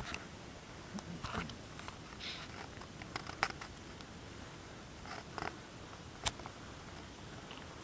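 Faint, irregular rustles and sharp clicks of someone walking through forest undergrowth, with twigs and leaves crackling underfoot; the sharpest snaps come about three and a half and six seconds in.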